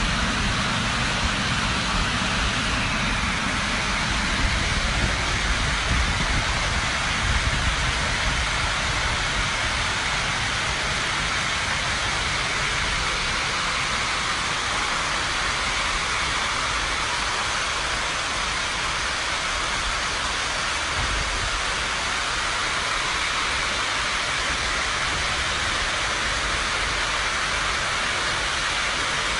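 Floodwater rushing down a metro station's stairways and escalators: a steady, loud rush of water.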